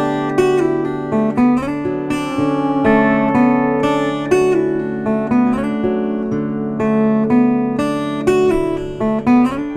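Background music of acoustic guitar, plucked and strummed notes over held low bass notes.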